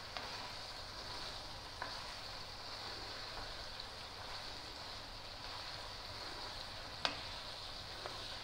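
Chicken pieces sizzling steadily as they are stir-fried in spices in a karahi, a spatula turning them through the pan. A few short knocks of the spatula against the pan, the loudest about seven seconds in.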